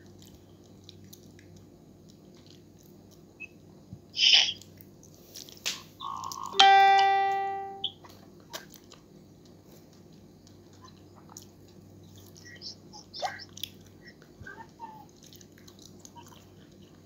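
An electronic chime rings once about six and a half seconds in, a single clear note fading over about a second. A short loud burst of noise comes a couple of seconds before it. Faint small mouth sounds of eating soft ripe mango run through the rest.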